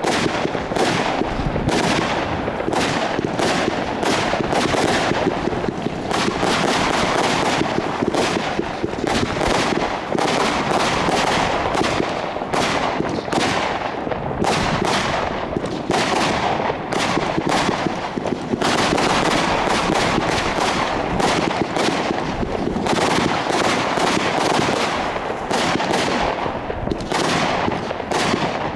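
Consumer fireworks going off in a dense, unbroken barrage: many rapid bangs over a steady crackling.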